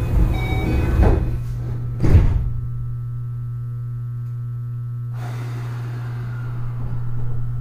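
Inside a Keio 8000 series train car, a sliding door closes with a thud about two seconds in, over a steady low hum. About five seconds in, a rushing hiss starts suddenly and carries on.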